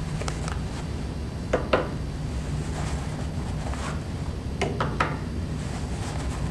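Steady low background rumble with a few short knocks, two about a second and a half in and two about five seconds in.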